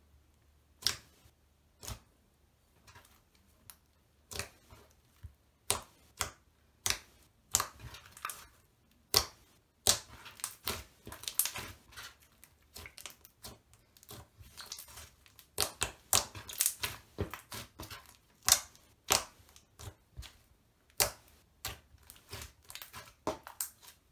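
Several slimes being kneaded, folded and pressed together by hand, giving irregular sharp clicks and pops. They come sparsely at first and much thicker and faster from about ten seconds in.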